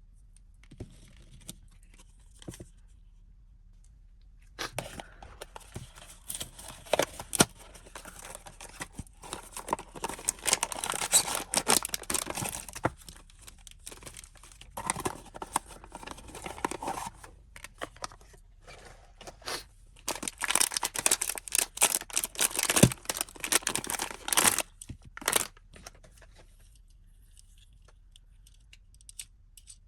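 Blind-box packaging being torn open and crinkled by hand: bouts of tearing and rustling with sharp crackles, starting a few seconds in and stopping a few seconds before the end.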